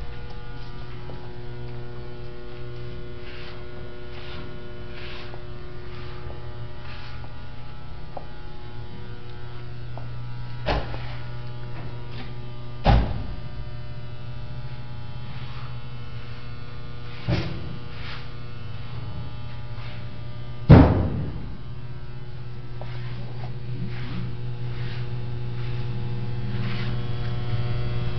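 Steady low electrical mains hum. A few short knocks break through it, the loudest about two-thirds of the way in.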